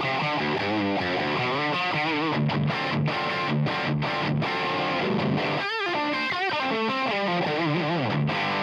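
Overdriven electric guitar (Lucky Dog Redeemer) through a Line 6 Helix modelling a Brit Plexi Bright amp with its drive stomp engaged, playing continuous riffs and lead lines: a classic, screaming Plexi-style crunch. About two-thirds of the way through, held notes bend and waver with wide vibrato.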